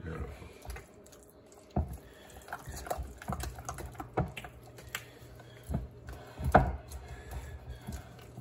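A spatula stirring thick ricotta cheese in a mixing bowl, folding in chopped parsley: irregular soft taps and scrapes against the bowl, the loudest about six and a half seconds in.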